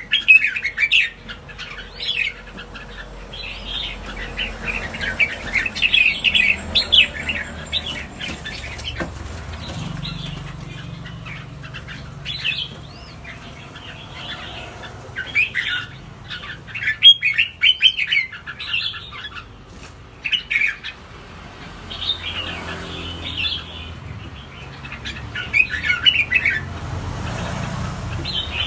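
Caged wild-caught songbirds chirping and calling in short, repeated bursts throughout.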